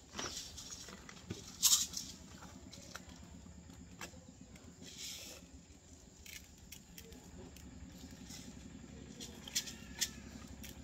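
Light handling sounds: scattered rustles, scrapes and small clicks as objects are moved and worked by hand, the loudest a short scratchy noise about two seconds in.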